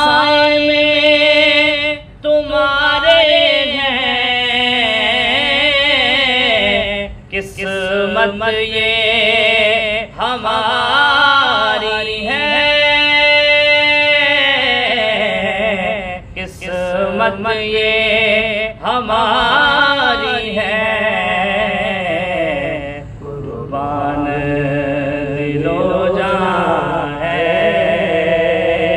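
A man singing a naat (Urdu devotional praise of the Prophet): one voice drawing out long, wavering melismatic notes, with brief pauses for breath every few seconds.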